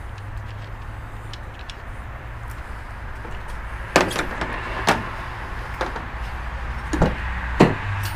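Several sharp knocks and clicks against a car's sheet-metal body, small parts being set down on the trunk lid, then a rear car door being opened near the end, over a steady low rumble.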